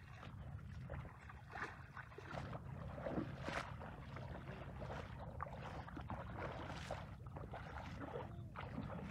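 Bare feet wading through shallow muddy water, splashing with each step in an irregular run of splashes.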